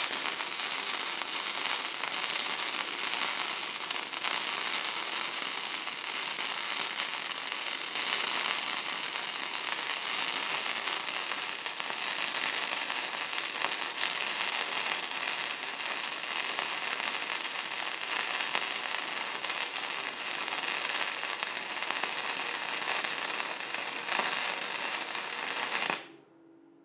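Modified Harbor Freight 90 amp gasless flux-core wire welder's arc running one long continuous bead on steel angle iron, a steady crackle that cuts off abruptly near the end when the trigger is released.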